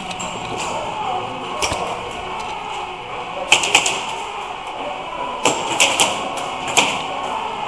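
Scattered single snaps of airsoft guns firing, about seven sharp cracks spread irregularly over a steady background murmur, the loudest pair about three and a half seconds in.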